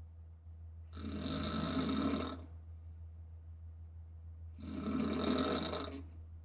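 A woman snoring with her mouth open: two snores, each about a second and a half long and about three and a half seconds apart. A steady low hum runs underneath.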